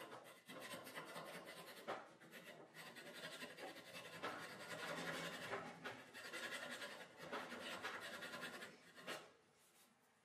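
Broach saw rasping back and forth in a drilled tang slot in an ironwood handle block, rapid short strokes scraping out the wood between the holes. The sawing trails off near the end.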